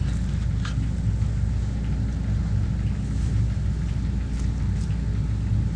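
Steady low hum or rumble, with a few faint light clicks.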